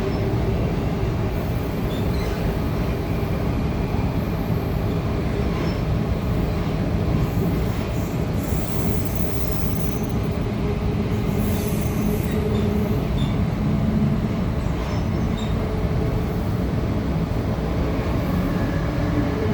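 A Goninan Tangara electric multiple unit running at full speed, heard from inside the car: a steady rumble of wheels on the track with a steady low hum. A couple of brief high-pitched noises come through about eight and eleven seconds in.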